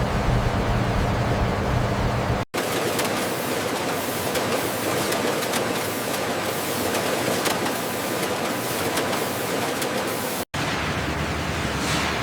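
Steady factory machinery noise, a low hum under a hiss, broken twice by sudden cuts to a new shot about two and a half and ten and a half seconds in; after the first cut the low hum drops out and the noise sits higher.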